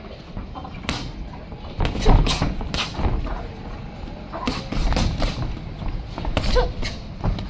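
Boxing gloves landing punches in sparring: sharp thuds come in quick flurries of several blows, with short gaps between the flurries.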